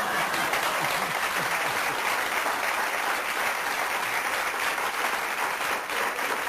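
Studio audience applauding, a steady, dense clapping.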